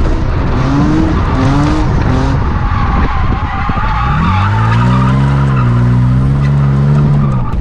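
1JZ-swapped Nissan 350Z drift car sliding: the straight-six revs in a few short rising blips, then climbs and holds high revs about four seconds in, over steady tire squeal.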